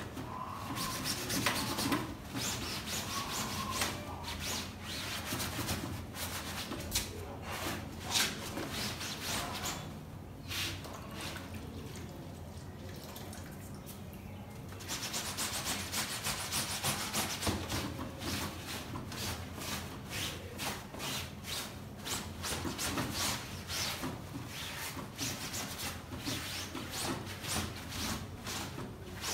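Cloth soaked in soapy water scrubbed back and forth over the padded fabric seat of a baby swing bassinet, in quick rubbing strokes. The rubbing stops for about five seconds midway, then resumes.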